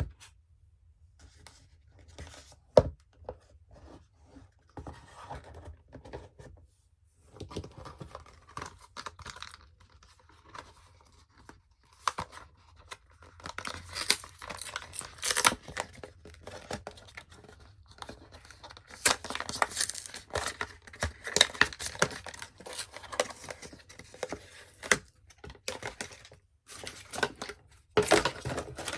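Apple Watch packaging being opened by hand: paper and cardboard tearing, rustling and scraping in irregular bursts, with a sharp knock about three seconds in.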